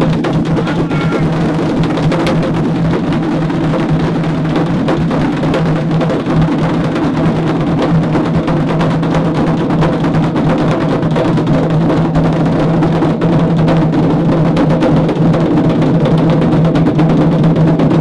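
A group of people playing djembe-style hand drums together, many hands striking at once in a dense, continuous rhythm.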